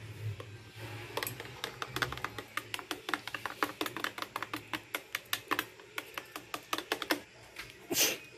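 A fork beating raw egg in a plastic tub: rapid clicking of the fork against the tub's sides, several strokes a second. A louder knock comes near the end.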